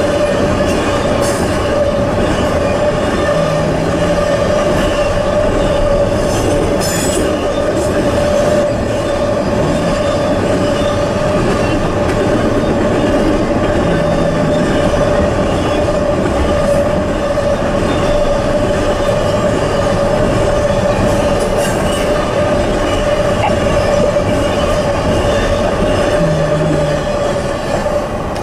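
Norfolk Southern freight train's cars rolling past at a grade crossing: steady wheel-on-rail noise with a high, held squeal and a few sharp clicks.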